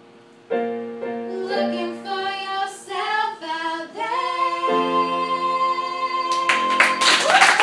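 Two girls singing over Casio Privia digital piano chords, closing on one long held high note. About six seconds in, clapping and whooping break out as the song ends.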